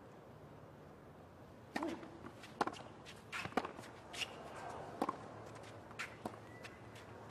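Tennis ball being bounced on a hard court before a serve: irregular sharp knocks starting about two seconds in, over a low steady stadium hum.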